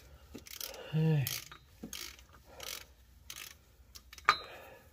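Ratchet wrench clicking in short bursts as a drive shaft bolt is worked loose, with a sharp metallic clink near the end.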